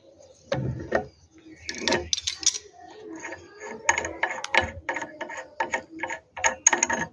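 Brass cover cap on a tap's headgear being unscrewed, first with an adjustable wrench and then by hand: light metal clicks, a few scattered at first, then a quick run at about four a second in the second half.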